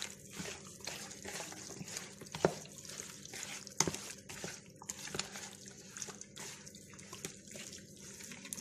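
A bare hand squishing raw chicken pieces through a yogurt and spice marinade in a bowl: irregular wet squelches, with a couple of louder ones about two and a half and four seconds in.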